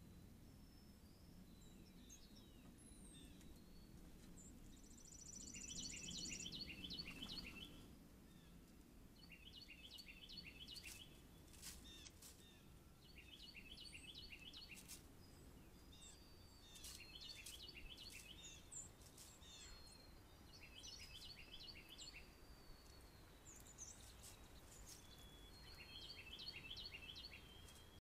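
Faint outdoor birdsong: a songbird repeats a short phrase of about six quick notes roughly every four seconds, with a brief high buzzy trill and scattered chirps from other birds between phrases.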